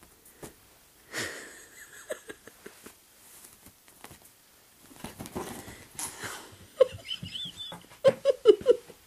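Bedsheets rustling and swishing in bursts as they are pulled about while a bed is made and a cat pounces on them, with a few small knocks. Near the end, several short vocal sounds.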